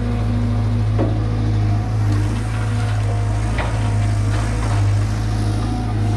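Caterpillar 320 GC excavator's four-cylinder Cat C4.4 diesel engine running steadily, with a low drone and a couple of sharp knocks, about a second in and again past the middle.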